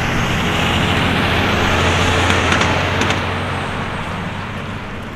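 Jet noise from a Boeing 777 freighter's two GE90 turbofans climbing out after takeoff: a loud, steady rumble with a low hum that swells to its peak about two to three seconds in, then slowly fades as the aircraft pulls away.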